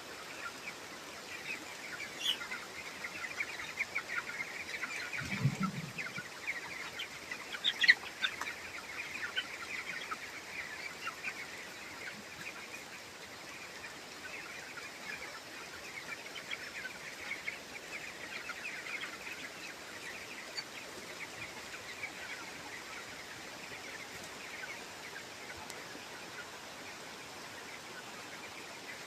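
A flock of 20-day-old broiler chicks peeping and cheeping continuously, many short high calls overlapping. There is a brief low sound about five and a half seconds in and a louder call near eight seconds.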